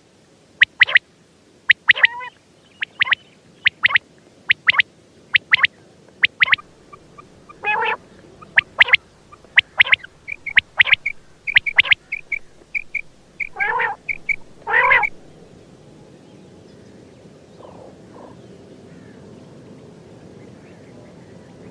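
Quail calling: short, sharp high notes in quick pairs and triplets, repeated every second or so, with a few lower falling calls in the middle. The calls stop about three-quarters of the way through, leaving a faint low hum.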